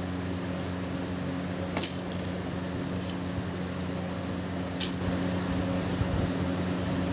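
Steady low electrical hum in a small room, broken by two short, sharp high-pitched clicks or rustles, one about two seconds in and one about five seconds in.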